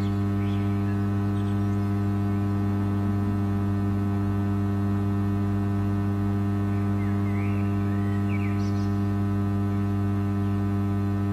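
Quad 303 power amplifier running with its faulty channel live, putting out a steady low mains hum with a long string of overtones through the loudspeaker. The good channel is silent, so the hum is the sign of the fault being traced, which the owner suspects is a bad transistor or the smoothing capacitors.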